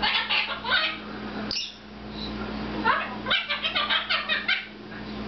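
Red-fronted macaw making high-pitched chattering calls: a short bout at the start, then a quick run of short, clipped calls from about three seconds in.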